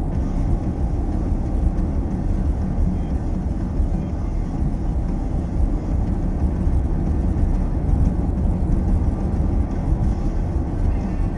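Steady road noise of a car driving at highway speed, heard inside the cabin: a continuous low rumble of tyres and engine with no change in pitch.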